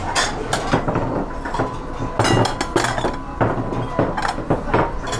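Kitchen clatter: dishes, pots and utensils clinking and knocking at irregular intervals.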